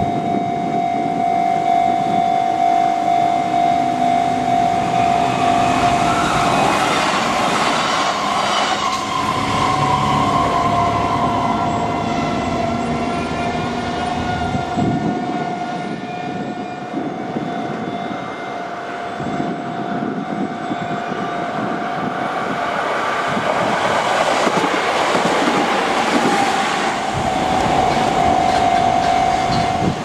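Japanese level-crossing warning bell ringing steadily while Kintetsu electric trains pass. The trains' running noise swells over the bell twice, about a quarter of the way in and again near the end.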